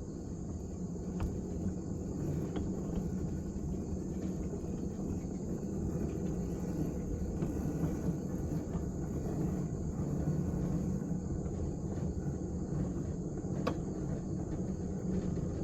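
Small railroad train running along the track with a steady low rumble and a few faint clicks.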